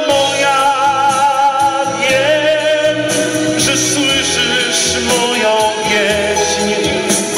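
A man singing into a microphone over a backing track, holding long notes with vibrato, heard through the PA.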